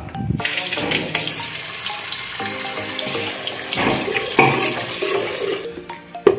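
Water running in a steady stream, starting about half a second in and stopping near the end, over background music.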